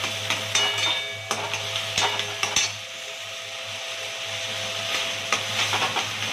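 Mashed boiled taro leaves sizzling in hot oil in a metal kadai while a metal ladle stirs and scrapes through them. There are irregular scrapes and knocks of the ladle on the pan over a steady sizzle.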